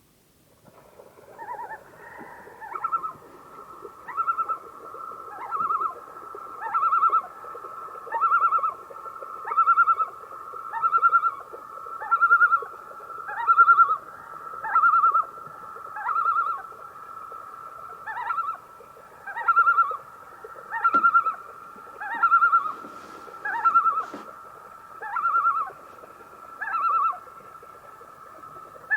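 Common loon calling: a long, steady series of loud, wavering phrases repeated about every second and a half over a held tone.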